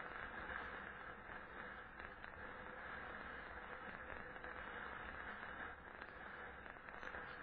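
Steady, muffled riding noise from a bicycle moving over packed snow: tyre rumble and wind on a camera mounted on the rider, with a faint steady hum underneath.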